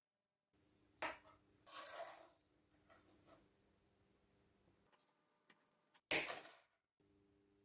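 Side cutters snipping through a flattened copper wire with one sharp snap about six seconds in. Before it come a few quieter clicks and scrapes as the wire and cutters are handled.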